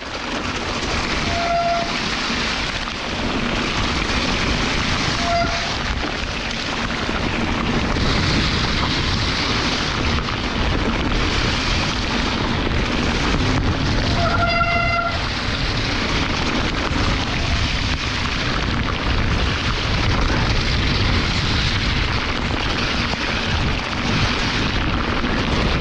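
Mountain bike ride in a tropical downpour: steady, loud rain and wind noise buffeting the camera microphone, with a low rumble from tyres on the wet trail. Short squeals about 1.5 and 5.5 seconds in and a longer one around 14 seconds in, like wet disc brakes squealing.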